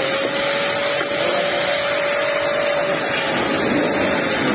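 Handheld grinder running steadily against a rusted steel dog lock, grinding the rust off. It makes a steady whine over a loud rushing hiss.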